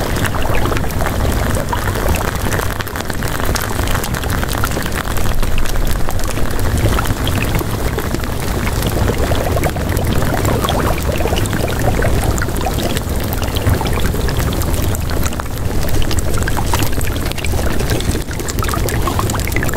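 Steady, unbroken water noise like heavy rain, dense across the whole range with a strong low rumble.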